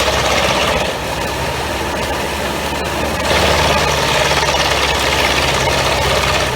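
Pezzolato PTH 1000/1000 G drum wood chipper running off a New Holland tractor's PTO, with the tractor engine's steady low hum under the machine's dense noise. The noise eases about a second in and grows louder again a little past halfway.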